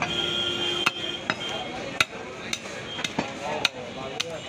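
A large curved butcher's knife chopping beef on a wooden log block: about seven sharp knocks of the blade striking through the meat into the wood, unevenly spaced about half a second apart.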